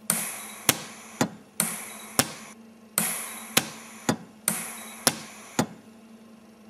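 Lampert precision welder firing a series of short welding pulses: sharp snapping cracks in groups of two or three, the first of each group trailing a short hiss, over a steady low hum.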